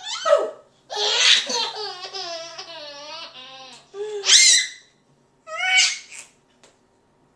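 A 13-month-old baby laughing in bursts: a short laugh at the start, a long rippling belly laugh about a second in, then two shorter high-pitched laughs.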